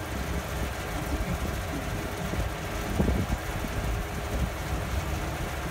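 Snowmobiles running in the distance: a steady engine drone over a low, uneven rumble.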